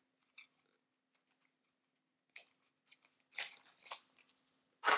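Tarot cards and their paper packaging being handled: a few short, scattered rustles and clicks with quiet between them.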